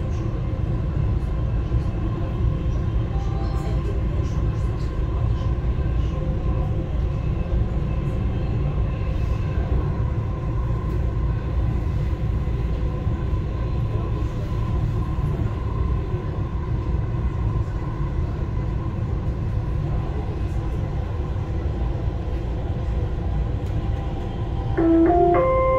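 Dubai Metro driverless train heard from inside the car while running between stations: a steady low rumble of the wheels on the track with a faint steady whine. About a second before the end comes a short chime of several tones, the signal that precedes the onboard station announcement.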